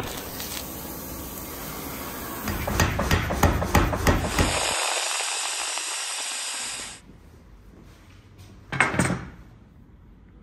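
Metal-working noise: the hiss and crackle of arc welding, then an angle grinder grinding the steel of a wire-rope Damascus knife blade, which cuts off about seven seconds in. After that there is quiet workshop tone, with one short burst of noise near the end.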